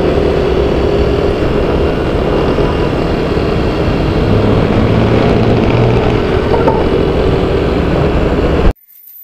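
Motorcycle riding on the road: the engine runs steadily under loud road and wind noise. The sound cuts off suddenly near the end.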